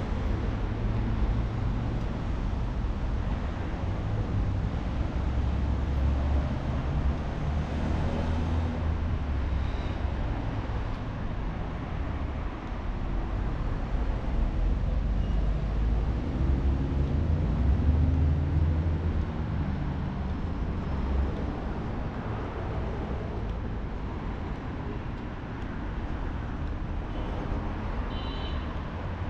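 City street traffic: motor vehicle engines running with a steady low rumble, swelling as vehicles pass close about six seconds in and again around seventeen to twenty seconds.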